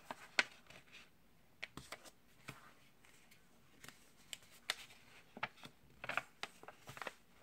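A sheet of printer paper being folded and creased by hand: faint, irregular crinkles and ticks as fingers press and smooth down a fold.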